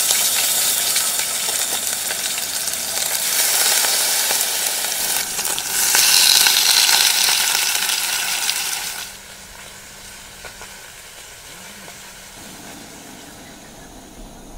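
Chunks of meat searing in hot oil in a pot on a gas burner: a loud sizzle that swells about six seconds in, then falls away to a much quieter hiss about nine seconds in.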